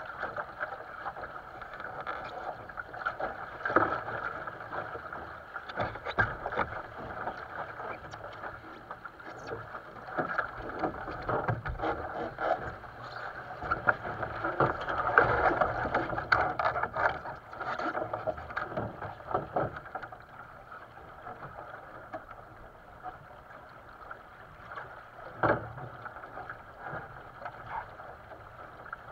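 Water rushing and splashing along the hull of a two-person sailing dinghy under way. The rush swells about halfway through. A few sharp knocks sound against the boat, the loudest near the end.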